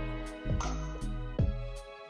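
Instrumental background music with notes changing about once a second.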